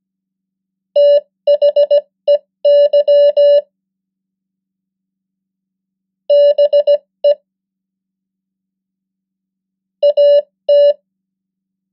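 Morse code practice words sent as a mid-pitched beep keyed on and off in dots and dashes at 15 words per minute. Three words sound: one starting about a second in, one around six seconds in and one near ten seconds in, with pauses between them.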